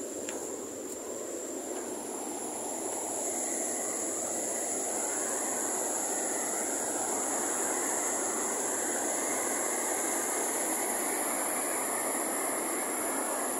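River rapids, white water rushing over a rock shelf: a steady rushing noise that grows louder about three seconds in, as the water comes close.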